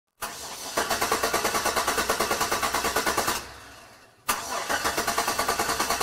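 A car engine being cranked by its starter without catching. A click, then a rapid even chugging of about seven beats a second for roughly three seconds, which winds down and fades. About four seconds in a second attempt starts the same way, with a click and the same chugging.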